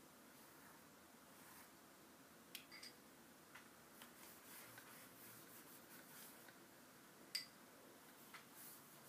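Faint strokes of a flat brush loaded with Indian ink across newsprint, with a few light ticks and clicks, the sharpest about seven seconds in, over near-silent room tone.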